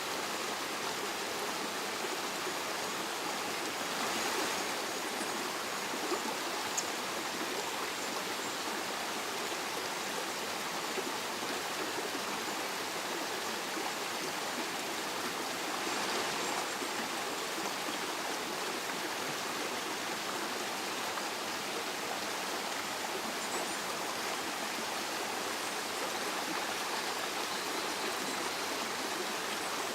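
Stream water running steadily, swelling slightly twice.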